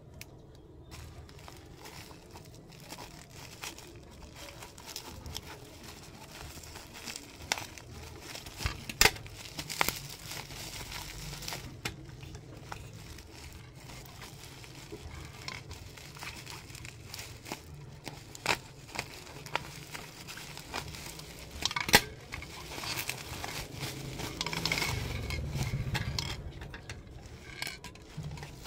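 Plastic bubble wrap crinkling and rustling as it is handled and pulled off a paper-wrapped parcel by hand. Scattered sharp crackles run through it, the sharpest about three-quarters of the way through.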